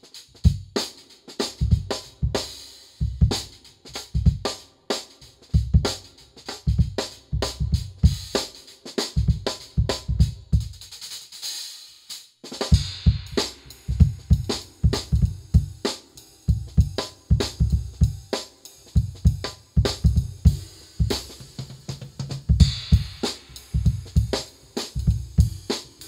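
Drum kit played with sticks: kick drum, snare and hi-hat in a steady groove with cymbal hits. About halfway through the beat breaks off briefly after a cymbal swell, then comes back busier.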